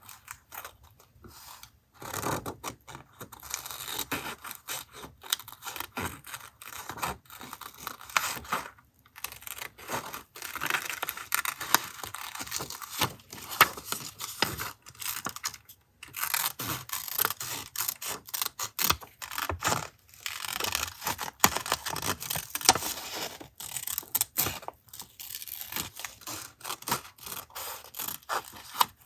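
Paper being torn and rubbed by hand for a collage: a dense run of short crackling strokes, broken by a few brief pauses.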